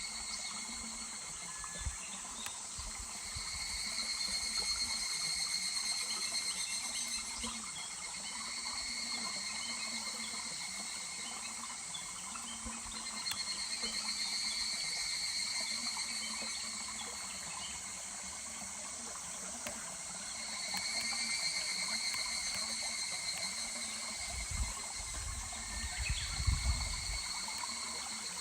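Higurashi (evening cicadas) calling in pulsing phrases that swell and fade every several seconds, over the steady murmur of a stream. A low rumble comes in about 24 seconds in.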